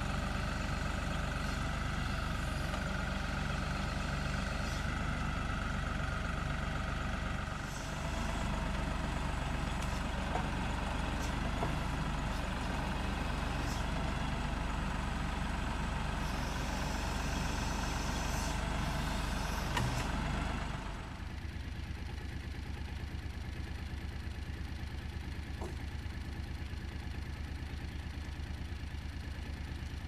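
LS compact tractor's diesel engine running steadily at working revs while the front loader's pallet forks lift a heavy timber frame. About two-thirds of the way through it drops to a quieter idle.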